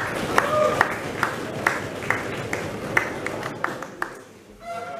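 Small audience applauding, thinning to scattered single claps and dying out about four seconds in.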